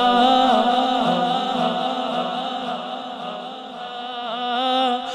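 A man's voice singing an unaccompanied Urdu hamd, holding a long wavering note on "Allah" into a microphone. It fades in the middle and swells again near the end.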